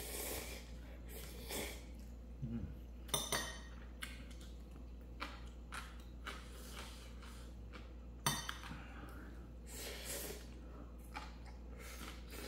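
Eating utensils clinking and knocking against cookware and dishes during a ramen meal: scattered light clinks with a couple of sharper knocks, about three seconds in and again past eight seconds.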